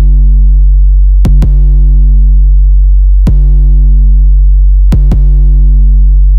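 Loud electronic background music: a held low chord with a few sharp drum hits, a pair about a second in, a single one near the middle and another pair near the end.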